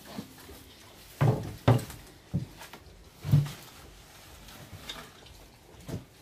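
A handful of dull knocks and thuds at irregular intervals, the loudest a close pair a little over a second in and another past three seconds.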